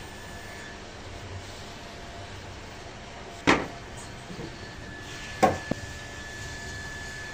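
Three sharp knocks of wood about two seconds apart, the second followed by a lighter tap, over a faint steady background with a thin high tone.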